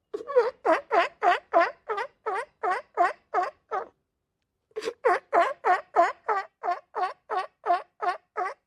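Sea lion barking in rapid runs of about three barks a second, each bark dropping in pitch. The barking breaks off for about a second near the middle, then starts again.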